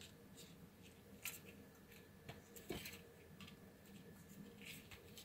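Faint clicks and small rustles of thin wire leads and small plastic connectors being handled by hands, with two sharper ticks about a second and a quarter and nearly three seconds in.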